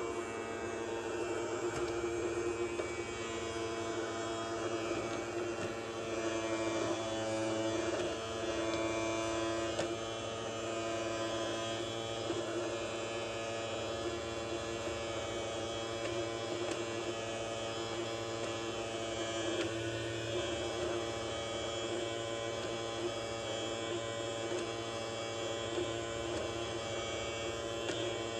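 Small electric motor of a toy robot vacuum cleaner running with a steady buzzing hum, its pitch shifting slightly now and then.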